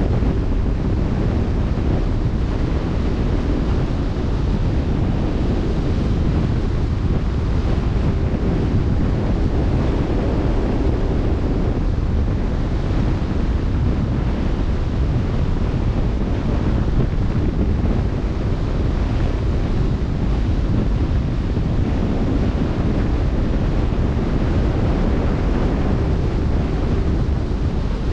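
Steady wind noise on the microphone over the rush of open-sea waves, a constant low-heavy roar without breaks.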